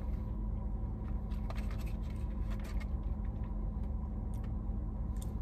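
Steady low hum inside a parked car, with faint scattered clicks and rustles as hash browns are picked out of a cardboard container and eaten.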